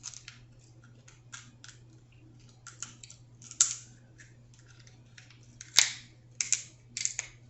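Cooked shellfish shell being cracked and picked apart by hand: a series of sharp snaps and crackles with quiet gaps between them, the loudest a little past the middle.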